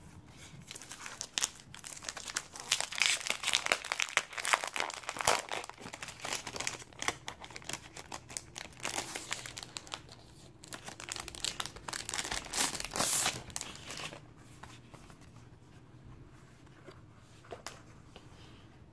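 Clear plastic sleeve crinkling and rustling in quick, uneven crackles as a spiral-bound desk calendar is handled and slid out of it; the crinkling dies down about two-thirds of the way through, leaving only a few faint taps.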